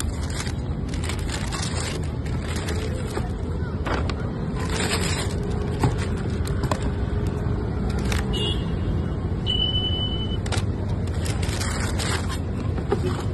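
Tissue paper in a cardboard shoebox rustling and crinkling in short bursts as it is folded back and handled, over a steady low rumble.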